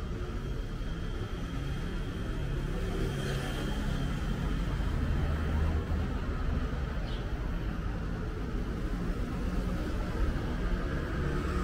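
Road traffic passing: a steady low rumble of vehicle engines and tyres, swelling a little partway through.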